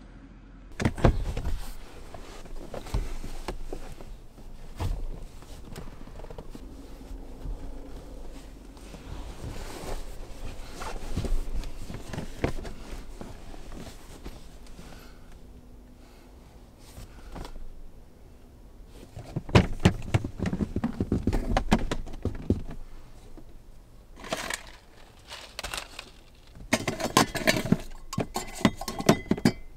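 Handling noise: scattered knocks, clicks and scrapes of objects being moved about, with denser bouts of clatter about twenty seconds in and again near the end.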